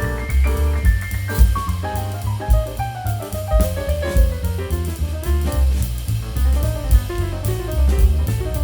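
Background music: an upbeat jazz tune with drum kit, walking bass and quick runs of piano notes.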